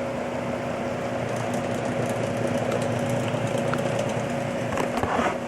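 Steady machine hum: a fan-like rush with a low, even tone under it. A couple of small handling knocks near the end.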